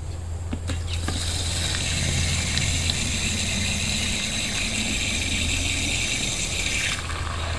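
Water running from an outdoor tap into a plastic car coolant reservoir tank, rinsing it out; the water starts about a second in and stops shortly before the end. A steady low hum runs underneath.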